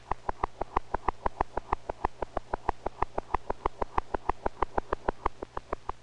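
A bird's fast heartbeat: rapid, evenly spaced pulses, about six or seven a second.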